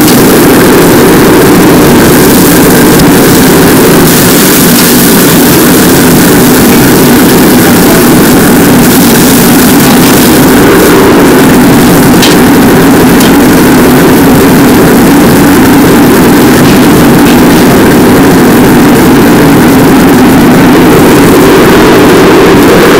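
Commercial gas wok burner on a high flame giving a loud, steady rush while food is stir-fried in the wok, with a metal ladle clinking against the wok a few times around the middle.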